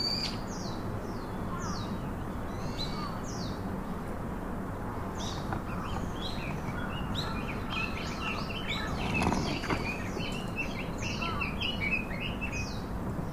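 Small birds chirping: many short, high chirps that slide downward in pitch, repeated throughout over a steady background hiss.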